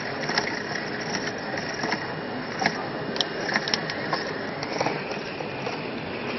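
Pedal-powered machine running under steady pedalling: a continuous mechanical whir with scattered light clicks and rattles.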